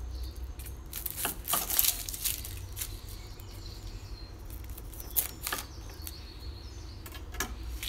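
Chef's knife cutting through an onion on a wooden chopping board, followed by the onion's dry papery skin being peeled and picked off. There are scattered sharp taps and crackles, busiest near the start and again toward the end.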